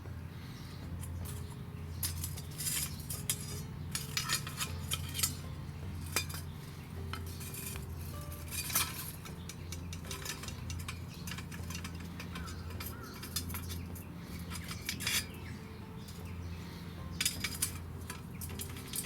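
Metal cookware and utensils clinking and scraping in scattered, irregular knocks, over a steady low hum.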